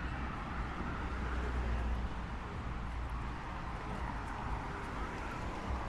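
Steady city street ambience: a constant low rumble of traffic with a general wash of street noise, and no single sound standing out.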